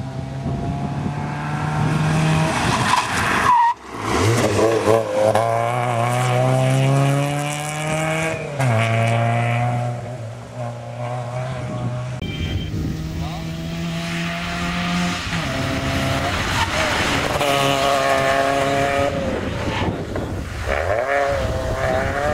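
Fiat Cinquecento rally car's small four-cylinder engine revving hard under full throttle. Its pitch climbs and then drops sharply at each gear change or lift-off, several times over.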